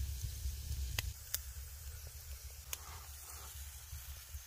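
Wood fire crackling over glowing embers with a soft hiss, three sharp pops about one, one and a half and nearly three seconds in. A low rumble eases after about a second.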